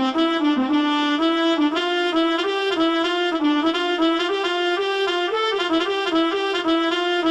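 Music: a single melody of short, quickly changing notes played on a horn-like wind instrument.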